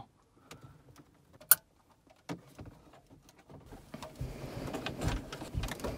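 A sharp plastic click about one and a half seconds in, as a wiring-harness connector is plugged into the back of a car head unit. About halfway through it gives way to scraping and knocking as the head unit's metal case is pushed back into the plastic dash opening.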